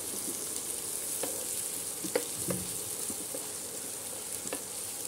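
Chopped onions sizzling steadily in hot oil in a non-stick frying pan. A wooden spatula stirring them taps against the pan a few times.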